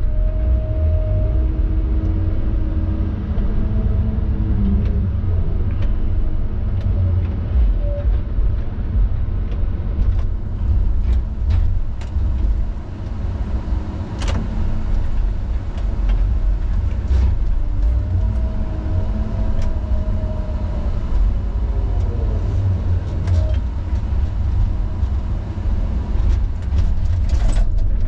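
Steady low rumble of a log truck's engine and road noise, with a few faint short clicks and rattles about halfway through.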